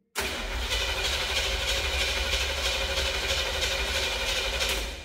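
1969 Chevrolet C50 truck engine turning over on a start attempt through a loud exhaust, a steady pulsing rumble that starts suddenly and stops suddenly near the end.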